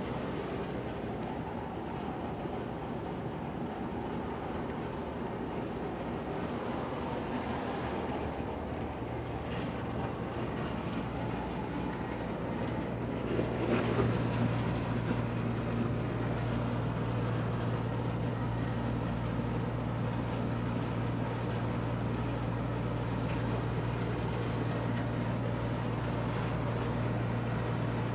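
Air-conditioning unit running: a steady mechanical drone, with a low hum that sets in about nine seconds in and grows stronger around fourteen seconds, then holds steady.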